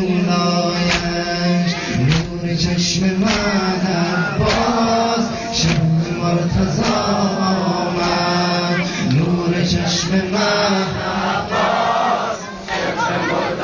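Men chanting a Shia mourning lament (noha) in Persian, voices in unison over a held low note, with sharp beats scattered through.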